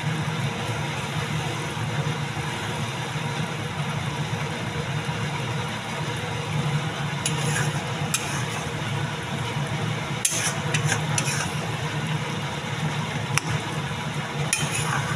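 Gravy in an iron kadhai simmering and sizzling, with a metal spatula stirring and scraping the pan in short bursts: a little past halfway, again a few seconds later, and near the end. Liquid is tipped into the pan from a cup. A steady low rumble runs underneath throughout.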